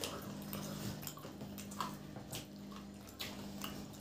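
People chewing fried potato samosas dipped in tamarind chutney, close to the microphone: scattered crunches and wet mouth clicks over a steady low hum.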